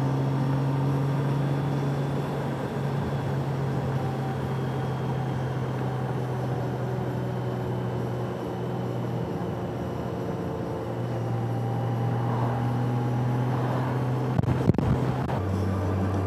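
Motorcycle engine running at a steady cruising speed with wind and road noise; near the end the engine note drops to a lower pitch after a couple of light knocks.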